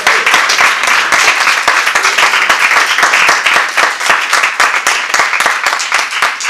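Small audience applauding, a room full of hands clapping.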